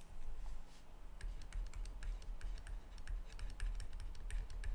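Stylus tapping and scraping on a tablet screen while handwriting, heard as a run of light, irregular clicks over a low steady hum.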